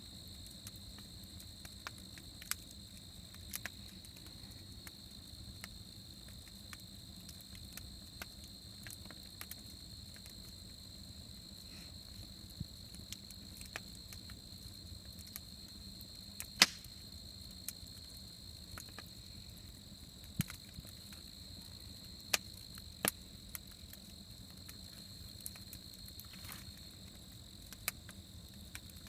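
Campfire crackling with scattered, irregular sharp pops, one much louder pop about halfway through, over a steady high-pitched chorus of crickets.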